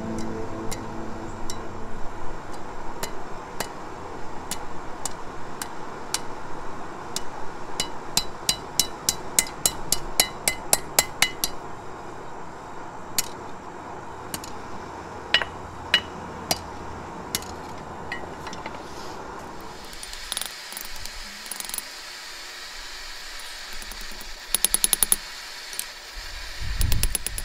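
Hand hammer striking a steel bar on an anvil, forging a hook: spaced blows with a quicker run of strikes about a third of the way in, then sparser hits and a few quick runs of light taps near the end.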